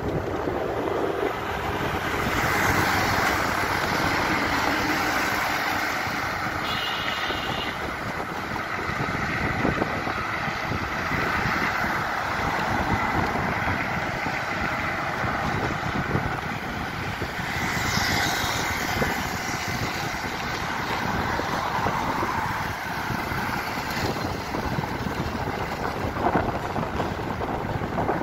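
Wind buffeting the microphone over steady road and traffic noise from a vehicle moving along a city road, with a brief high tone about seven seconds in.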